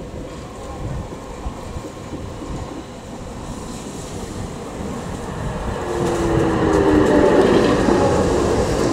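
GT4 articulated tram running towards the listener on its track and passing close by. Its rolling noise grows louder to a peak as it draws level near the end, with a humming tone in it.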